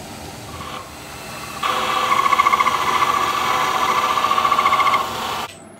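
Grizzly G0752Z metal lathe spinning at about 870 RPM while a carbide insert faces the shoulder of a steel shaft. The cut starts about a second and a half in as a loud, pitched, fast-pulsing ring, runs for about three seconds, and the lathe then winds down and stops near the end.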